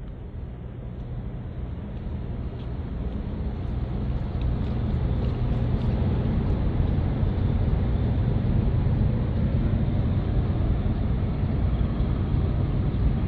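A low engine rumble that grows louder over the first few seconds and then runs on steadily.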